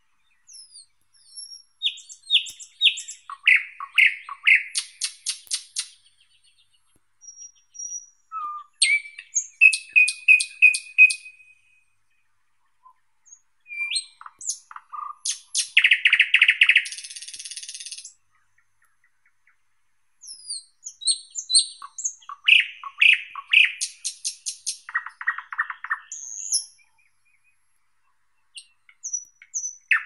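Thrush nightingale singing: four loud song phrases with short pauses between them. Each phrase is a series of repeated notes, with fast rattling runs of clicks and lower whistled notes. One phrase holds a long buzzy note in its middle.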